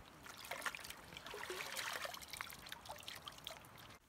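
A camp bowl being swished and rinsed by hand in shallow lake water: small splashes and trickling with light clicks, stopping abruptly just before the end.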